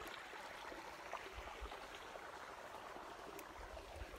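Faint steady outdoor background hiss, with a few small ticks.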